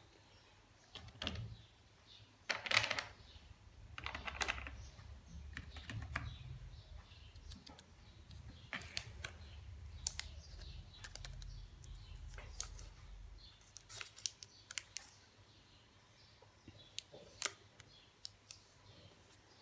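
Plastic chocolate-bar wrapper crinkling and crackling as it is handled, in scattered clicks, with two louder rustles a few seconds in.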